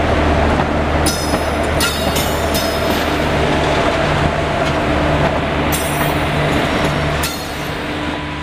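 Indian Railways WAG-7 electric locomotive running past close by: a steady rumble with a low motor hum. Short bursts of high-pitched wheel squeal come from about one to three seconds in and again from about six seconds. The sound begins to fade near the end.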